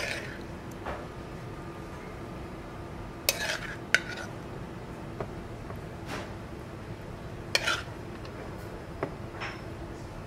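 Metal spoon clinking and scraping against a sauté pan and a porcelain plate as creamy pasta is spooned out and arranged. There are several sharp clinks a second or more apart over a steady low background hum.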